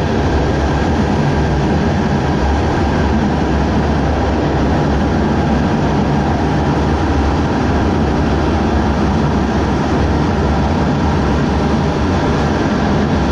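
Fighter jet engine noise: a loud, steady rumble with a hiss over it that holds without change.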